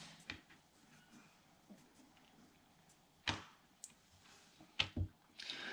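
Faint handling of a coaxial cable and hand tools: a few light taps and clicks, the loudest about three seconds in and two more close together near the end.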